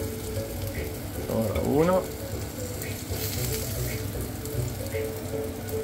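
Cervelat sausages sizzling in a hot grill pan: a steady frying hiss. A short rising tone comes about one and a half seconds in and is the loudest moment, with faint music underneath throughout.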